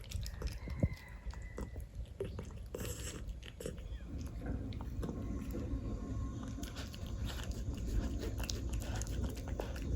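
A cat eating wet tuna in gravy at close range: irregular wet smacking, licking and chewing clicks.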